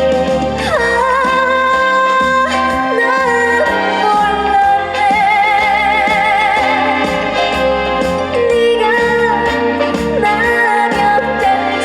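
Instrumental break of an upbeat Korean trot song: a held, wavering lead melody over a steady beat and bass.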